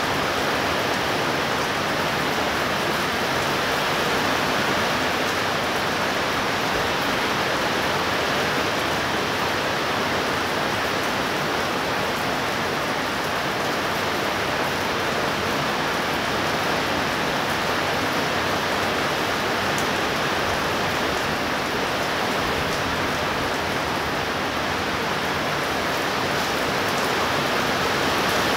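Rain falling steadily: a constant, even hiss with no thunder and no other event.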